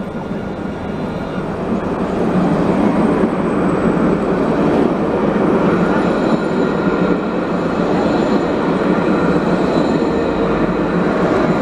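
Alstom Citadis light-rail tram passing close by: the rumble of its wheels on the rails grows over the first couple of seconds as it nears, then holds steady as the cars go past. A faint high steady whine runs over the rumble.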